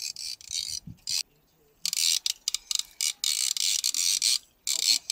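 Fishing reel cranked fast against a hooked fish, its gears whirring and clicking in short spells with brief pauses between them.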